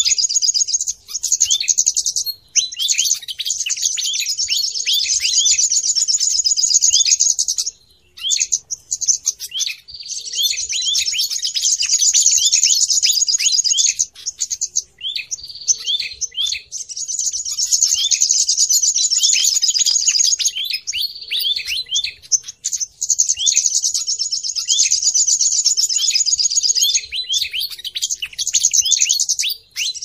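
Bird-lure recording of small songbirds calling in combination: dense, rapid high chirps and down-slurred notes in long bursts, broken by short pauses every several seconds.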